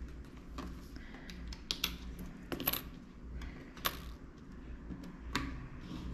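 Loose coins clinking as they are handled and set down one at a time while being counted: a scatter of separate light clicks and chinks.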